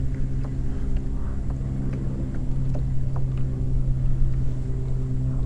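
A steady motor drone with a constant low pitch and an even rumble beneath it, with a few faint ticks scattered through.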